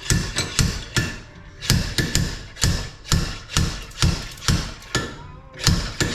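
Hammer strikes on metal, about two a second with slightly uneven spacing, knocking a stuck lipped bearing out of a dirt bike frame.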